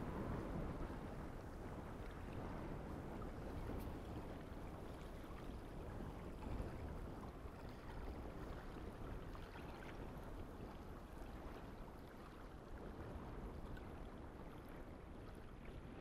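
Wind blowing over open moorland grass and scrub: a steady rushing that eases a little toward the end.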